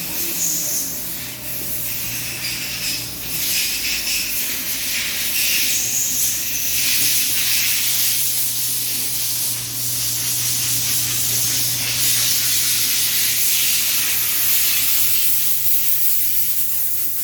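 Loud, steady hiss of air or spray from shop equipment, over a low, steady machine hum that drops out briefly a few seconds in.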